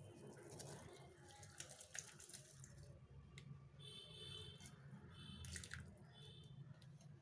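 Faint bubbling of simmering water in a metal kadai as kodo millet grains are poured in from a steel bowl, with scattered soft ticks. A few short high-pitched chirps come about four and five and a half seconds in.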